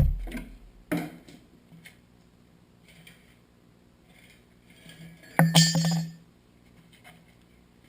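Metal clinks: a single short click about a second in, then a louder clatter of clinks lasting about a second, about five and a half seconds in, from parts and tools being handled while an engine is unbolted from a mini bike frame.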